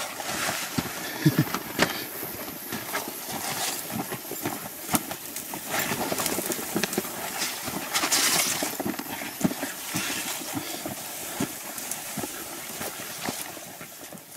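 Footsteps and scrub brushing and crackling as people push through dense gorse, with irregular snaps and knocks of twigs and a louder rustle of branches about eight seconds in.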